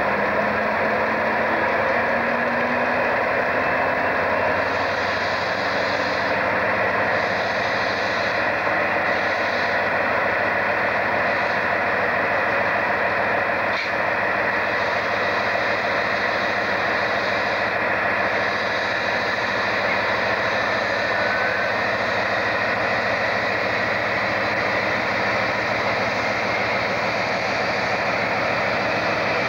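British Rail Class 56 diesel-electric locomotive's 16-cylinder engine running steadily as the locomotive moves slowly past. A low tone rises gradually in pitch over the first few seconds.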